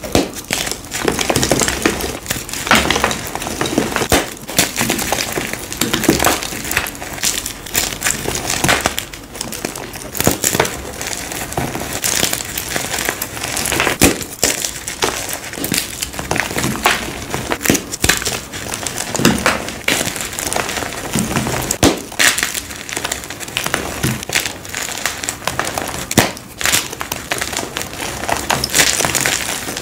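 Blocks of gym chalk crushed and crumbled between the hands: dense crunching and crackling, with frequent sharp snaps as pieces break off and powder falls.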